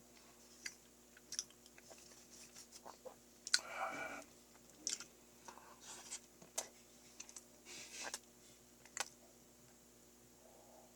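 Close-up chewing of a soft mash of Choco Pies and milk: wet mouth clicks and smacks at irregular moments, with a louder, longer mouth sound about four seconds in.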